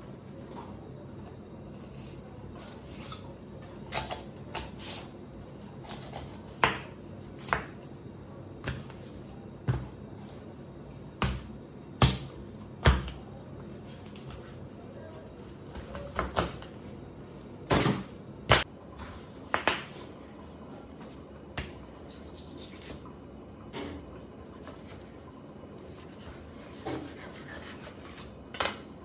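Whole fish being filleted with a knife on a plastic cutting board: irregular sharp knocks and taps of the knife and fish against the board, usually a second or more apart, over a steady low hum.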